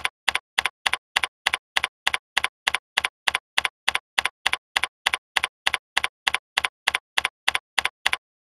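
Computer keyboard typing: a steady run of identical keystroke clicks, about three and a half a second, that stops shortly before the end.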